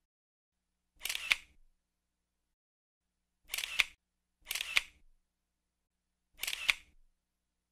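Camera shutter firing four times, about one to two seconds apart. Each shot is a brief rising rush that ends in a sharp click.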